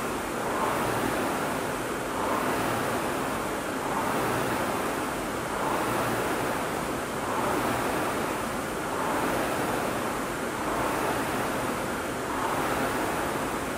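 Rowing machine's flywheel whooshing in even swells, one per stroke, about every second and a half to two seconds, as it is rowed at a steady pace.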